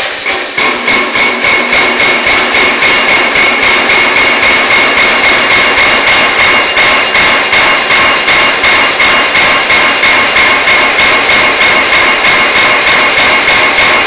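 Motorised pneumatic power forging hammer running, its ram striking in a steady rhythm of about two to three blows a second, with a steady high ringing over the machine noise.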